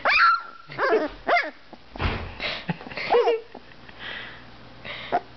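Two-week-old Dalmatian puppy trying out his first barks: about four short, high-pitched, squeaky yips, each sliding in pitch. A brief rustle comes about two seconds in.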